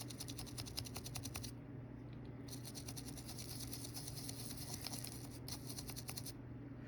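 A small brush scrubbing a phone's circuit board wet with isopropyl alcohol, in quick scratchy strokes. The strokes come in three spells, with short pauses about a second and a half in and again about five and a half seconds in. The scrubbing is clearing rust and corrosion left by water damage.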